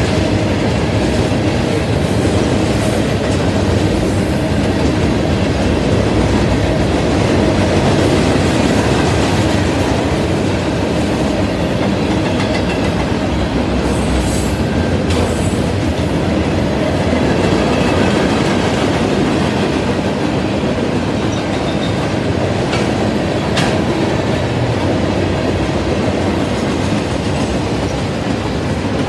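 Freight train's tank cars, lumber flatcars and boxcars rolling past close by: a steady, loud rumble of steel wheels on the rails.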